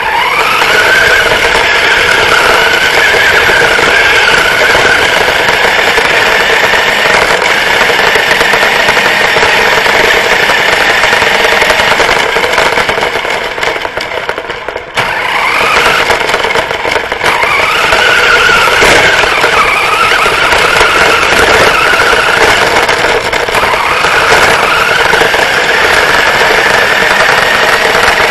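Homemade RC car's drive motor and gears whining as it drives on asphalt, the pitch rising as it speeds up. It eases off about 14 seconds in, then speeds up again with another rising whine.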